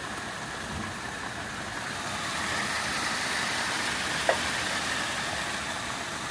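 Heavy rain pouring down steadily, growing a little heavier for a couple of seconds, with one sharp tick about four seconds in.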